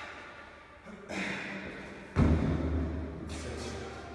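Thuds of box-jump footwork on a rubber mat and wooden plyo box, ringing on in a bare, echoing room. A softer thud comes about a second in and a heavy one a little after two seconds.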